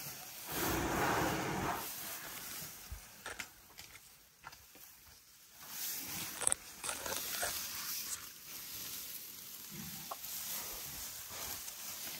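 Dry grass rustling and crackling as elephants feed close by, tearing up and chewing grass, with a louder rustle about half a second in and scattered small crackles after it.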